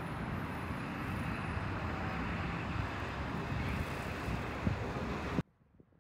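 Wind buffeting a phone microphone outdoors: a steady, noisy rumble with uneven low gusts, cut off suddenly about five and a half seconds in.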